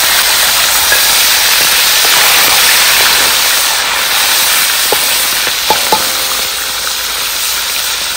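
Pieces of tongkol (mackerel tuna) frying in hot oil in a steel wok, with a loud, steady sizzle. A few sharp clicks stand out a little past halfway.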